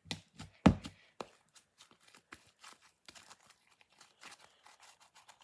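Sticky slime being kneaded and stretched by hand: a run of small wet clicks and pops, with one louder thump just under a second in.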